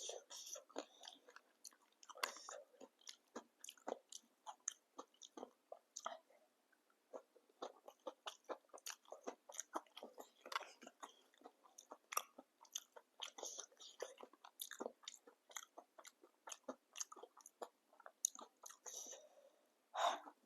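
Close-miked chewing of papdi chaat: a steady run of irregular crisp crunches as the fried papdi wafers are bitten and chewed.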